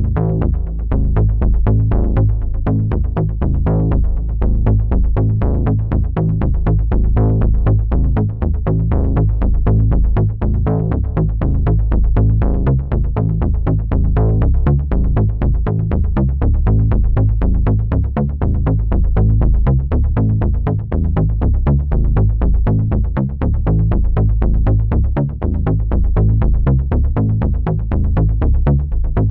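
Suspense sound-effect cue built on a helicopter rotor chop: a fast, even pulsing over a heavy low rumble, with an electronic, music-like character.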